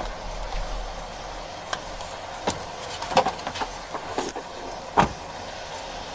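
SUV rear door shut with a single thud about five seconds in, over a steady outdoor hiss, with a few softer clicks and knocks before it.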